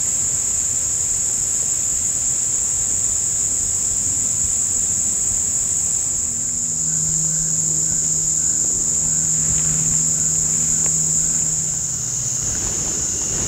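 A steady, high-pitched chorus of summer insects droning without a break. About halfway through a low hum comes in and fades out again near the end.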